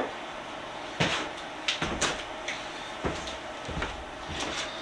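Irregular knocks and clatters of metal tools being handled and set down on a workbench, about ten sharp knocks at uneven spacing.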